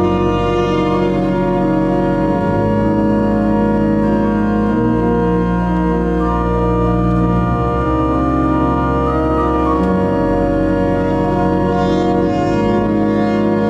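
Church pipe organ playing slow, sustained chords, with the deep bass notes changing about every five seconds.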